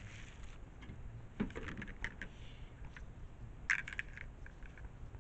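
Hard plastic cabinet parts clicking and clattering as they are handled and taken out of their plastic wrap: a knock about a second and a half in, a few light clicks, then a sharper cluster of clicks near four seconds.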